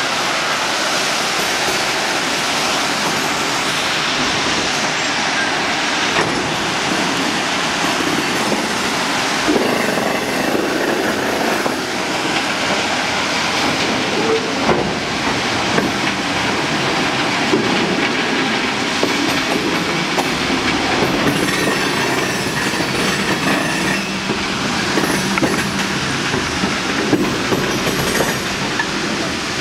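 Ballast train's hopper cars rolling slowly along the track while crushed stone pours from their bottom gates onto the rails: a steady rushing, rattling noise.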